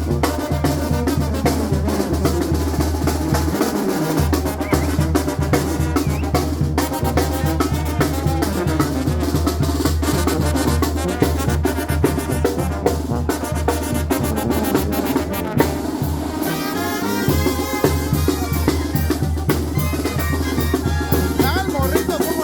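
Oaxacan brass band playing a dance tune: trumpets and other brass over snare and bass drum, with a steady low bass line underneath.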